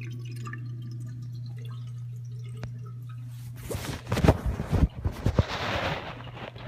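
Water dripping and trickling in a 1987 American Standard Cadet toilet tank over a steady low hum. About three and a half seconds in, a louder spell of noise with several thuds lasts a couple of seconds.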